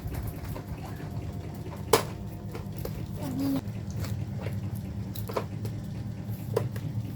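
Scattered clicks and taps from a card-game box and its packaging being handled, the sharpest about two seconds in, over a steady low hum.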